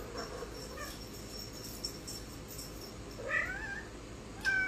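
Domestic cat meowing from out of sight, a few short calls that grow clearer, with two plainer meows in the last second and a half, as it comes looking for its hiding owner.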